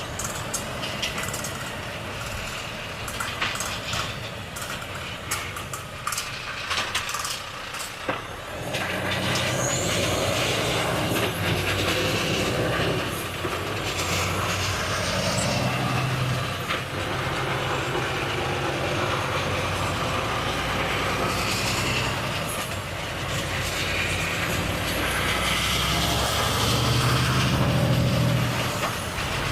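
Volvo FH truck's diesel engine, quieter at first with scattered sharp clicks. About eight seconds in the engine note rises and it runs under load, its pitch rising and falling, swelling near the end and then easing off.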